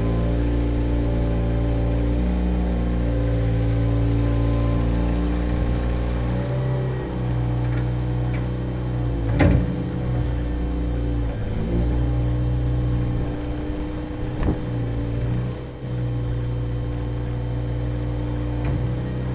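Bobcat 642 skid-steer loader's engine running steadily while the machine works a topsoil pile, its pitch dipping and rising now and then with the load. A few short knocks come through, the loudest about halfway through.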